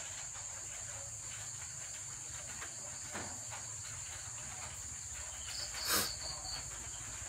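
Crickets trilling steadily at a high pitch, with a brief sharp noise about six seconds in.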